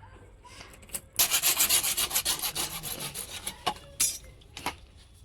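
Fast rasping strokes of a hand tool, about nine a second for a little over two seconds, then two single scrapes near the end.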